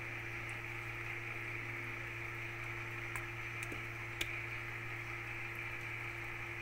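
Steady machine hum and hiss, with a few faint clicks about halfway through.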